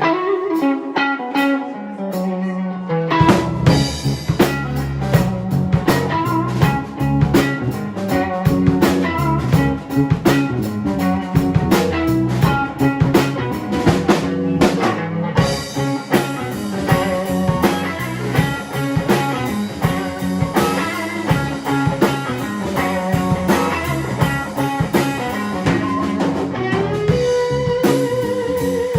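Live blues-rock trio of electric guitar, bass guitar and drum kit playing instrumentally. The electric guitar plays alone at first; about three seconds in, the bass and drums come in and the full band plays on.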